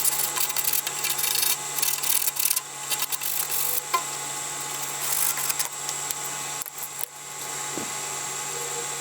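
Rasping hand-tool strokes on PVC drain pipe, as in cutting or deburring, in irregular bursts over the first few seconds and again about five seconds in.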